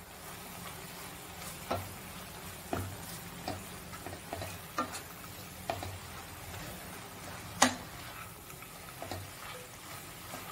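Wooden spatula stirring drumstick leaves in a hot pan, knocking and scraping against the pan at irregular intervals of about a second, with one louder knock about three-quarters through. Under it runs a steady sizzle of the leaves cooking.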